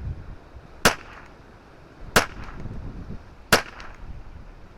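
Three .22 LR rifle shots from a Ruger 10/22 semi-auto with a 20-inch Kidd barrel, firing Eley Contact subsonic 42-grain rounds, evenly paced about 1.3 seconds apart, each a sharp crack with a short ring after it. A low wind rumble runs underneath.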